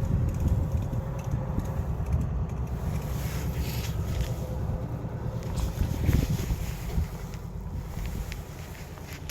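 Wind buffeting the microphone, an uneven low rumble, with a few faint knocks.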